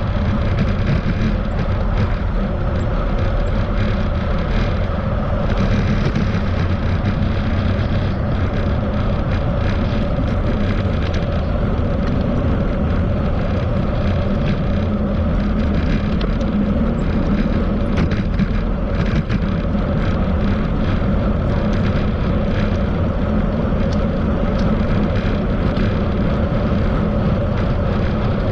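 Steady rumble of motor traffic on a busy road, heard from a moving bicycle, with wind on the microphone.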